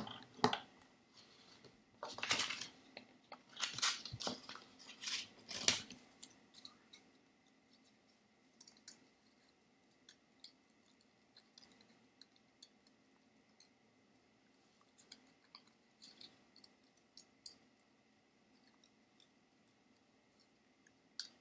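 Small scissors cutting green paper: several louder cuts and paper rustling in the first six seconds, then faint, quick, scattered snips as a small circle is trimmed out.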